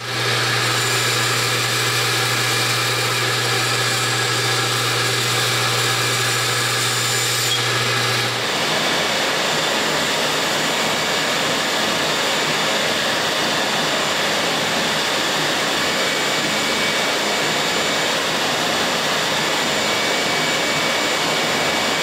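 Shop power tool running steadily while end caps for aluminium tubes are cut and shaped. Its sound changes abruptly about eight seconds in, where a low hum drops away.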